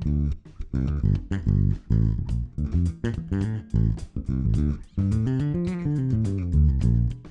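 Background music with plucked bass and guitar notes and a steady rhythm.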